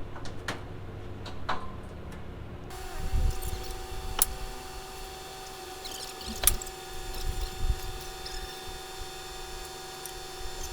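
Ferris wheel setup winch running with a steady hum as it draws the wheel's sweeps apart, starting about three seconds in, with two sharp metal clanks along the way. Before that, quieter low rumble and a few knocks.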